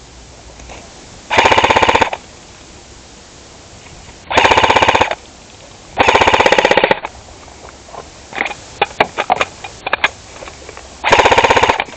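S&T AK105 replica rifle firing four short full-auto bursts of rapid shots, each just under a second long, with a few scattered single shots between the second and fourth bursts.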